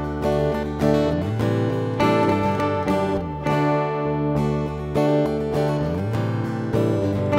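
Background music: acoustic guitar strummed in a steady rhythm, with a new chord about once a second.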